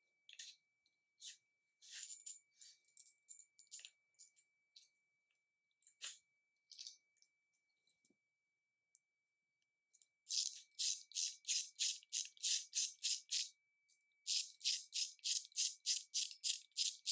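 Scattered light metal clicks of hand tools on a motorcycle's triple clamp and bar clamp, then, from about ten seconds in, a hand ratchet worked in quick, even strokes, about four a second, pausing briefly once.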